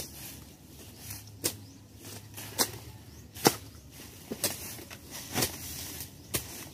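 Hoe chopping into dry grass, leaves and weedy ground: sharp strikes about once a second, with rustling of dry vegetation between them.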